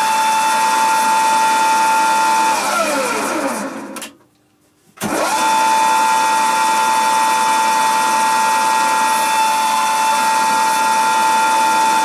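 Motor of the grinder driving an end-mill sharpening wheel: a steady high whine. About two and a half seconds in it winds down, falling in pitch to quiet. A second or so later there is a click and it comes straight back up to speed, whining steadily again.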